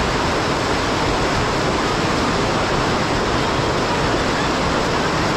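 Floodwater rushing past: a loud, steady, unbroken noise of fast-moving water.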